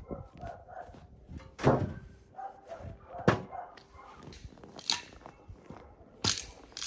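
Four sharp knocks, about a second and a half apart.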